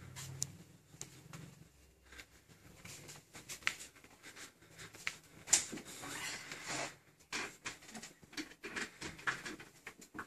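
Scattered light taps, clicks and rustling of a person walking and then handling things at a table in a small room, with a few sharper knocks.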